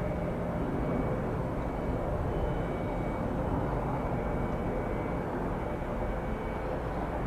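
Steady jet engine noise from an Airbus A330-300 widebody airliner arriving on the runway, holding an even level throughout.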